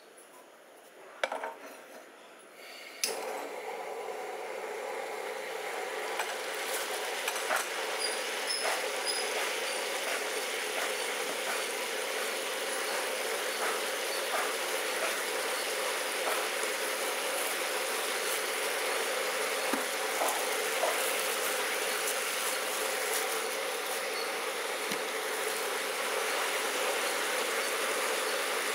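Chopped vegetables cooking in a pot: a steady sizzling hiss that starts suddenly about three seconds in, after a couple of clicks, and slowly grows louder, with scattered small pops.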